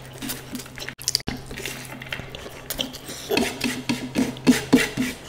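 Close-miked eating sounds: rapid, irregular chewing and smacking, with clicks of food and fingers against a plate.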